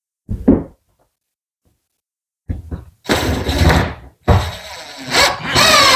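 Hollow knocks and thumps of OSB sheets being handled and laid on floor joists: one thump early, then a cluster of knocks. About four seconds in, a louder steady whirring with a wavering pitch begins.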